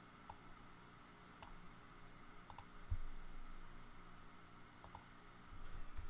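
Computer mouse clicking softly a few times, a couple of the clicks coming in quick pairs, while loops are picked and dragged in a music program. A low thump comes about three seconds in.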